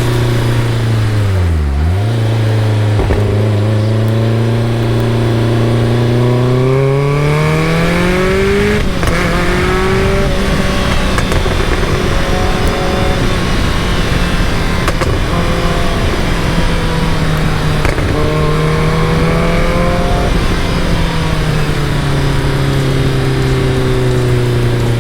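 Caterham Super Seven's engine running under way. Its pitch drops sharply and recovers about two seconds in, holds steady, climbs over a couple of seconds, holds at a higher pitch, then eases back down near the end.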